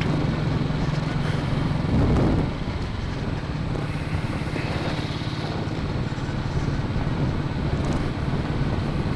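Royal Enfield single-cylinder motorcycle engine running steadily while riding along a dirt road, heard from the rider's helmet camera. It swells briefly louder about two seconds in.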